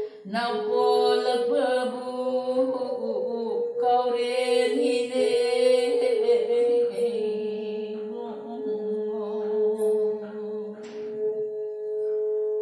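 A woman singing a melody with a bowed fiddle playing along. About seven seconds in the fiddle settles on one long held note, and the voice fades out a little after eleven seconds, leaving the fiddle note sounding alone.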